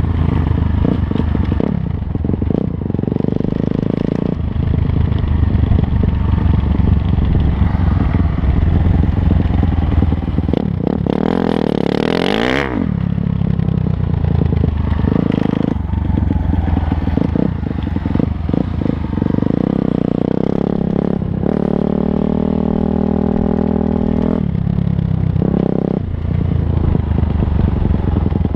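Dirt bike engine heard up close from the rider's helmet, running under way with the revs rising and falling as the throttle changes, along with rattle from the bike. About twelve seconds in the pitch briefly sweeps sharply up and down, and later it holds at a steady pitch for a few seconds.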